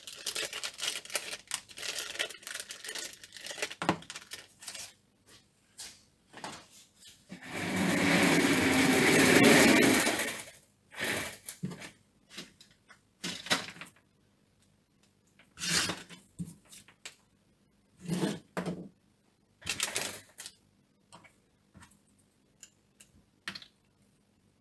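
Hands handling tools and small packets on a workbench mat: scattered clicks and taps, a louder noisy rustle lasting about three seconds, then a few separate clicks and knocks.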